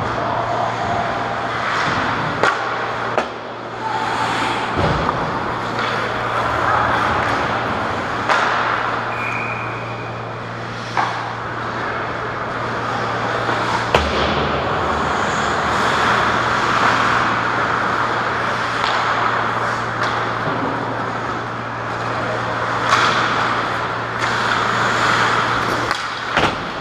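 Ice hockey play on a rink: skate blades scraping the ice, with sharp knocks from sticks and puck every few seconds, over a steady low hum.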